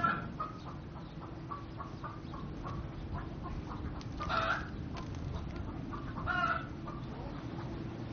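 Chickens clucking: a run of short, evenly spaced clucks, then two louder, longer calls about four and six seconds in.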